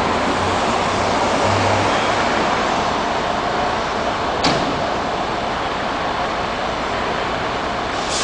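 Steady engine noise of fire trucks' diesel engines running in the open station bay, with one sharp knock about halfway through.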